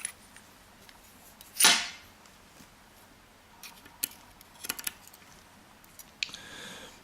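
Small sharp metallic clicks and taps of a Euro cylinder lock's pins and springs being handled during gutting. A loud breath about two seconds in and a softer breath near the end.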